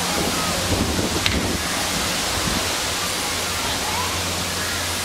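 A steady rushing hiss with faint, distant shouts of children now and then.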